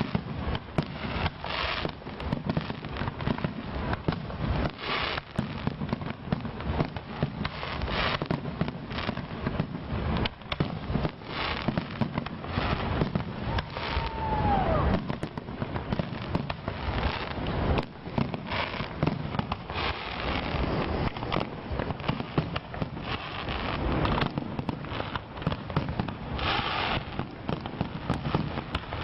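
Fireworks going off in a dense, continuous run of bangs and crackling, with a brief falling whistle about halfway through.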